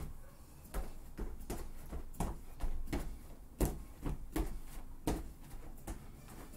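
Sneakered feet landing on foam exercise mats during a run of hops and knee raises, a thud about two to three times a second.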